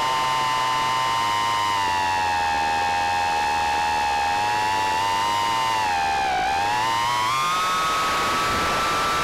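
Micro quadcopter's motors and propellers whining over a hiss of prop wash. The whine holds steady, dips in pitch about six seconds in as the throttle comes off, then climbs to a higher, steady pitch.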